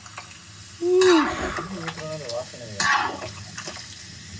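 Chicken pieces frying in ghee in a large pan, turned with a wooden paddle: steady sizzling with scraping and stirring. A person's voice is heard briefly about a second in.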